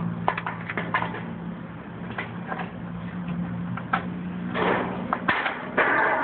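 Sheet-metal valley flashing being cut: a series of sharp clicks and snips, then longer crunching, scraping cuts near the end. Under them is a steady low hum that stops about five seconds in.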